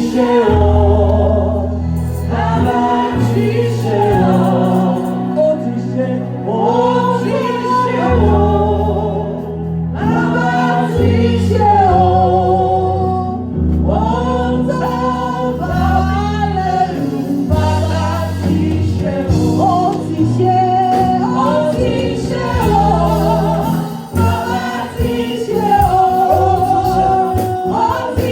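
Gospel song sung by a choir and congregation over a keyboard and bass accompaniment.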